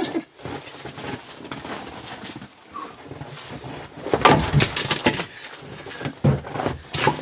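Irregular knocks and thuds from splitting firewood with a very dull splitting maul, the loudest blows about four seconds in and again near the end.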